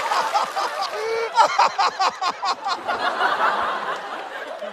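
Studio audience laughing, with a burst of rapid, rhythmic laughter about a second in that is the loudest part, fading off toward the end.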